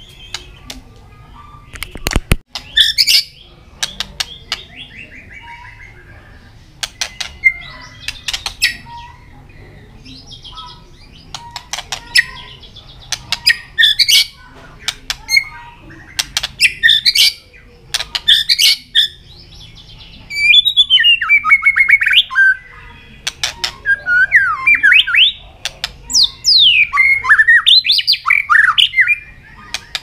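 White-rumped shama calling with sharp clicking notes and short squawks, with a low thump about two seconds in; from about twenty seconds in it breaks into loud, varied song phrases of quick rising and falling whistles.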